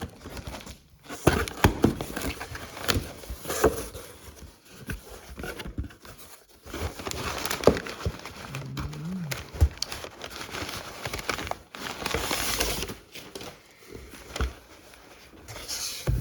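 Cardboard packaging being opened and unpacked by hand: irregular crinkling and rustling with knocks and scrapes, and a longer tearing rip about three quarters of the way through.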